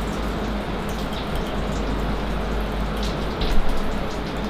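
Flood coolant splashing over the drill and workpiece as a Haas TM-1P CNC mill drills 304L stainless steel, over a steady machine hum, with scattered small clicks. A brief louder spike comes about three and a half seconds in.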